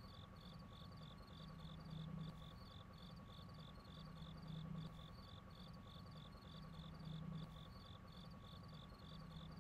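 Faint, steady insect chirping, about four chirps a second, over a low hum that swells every two to three seconds.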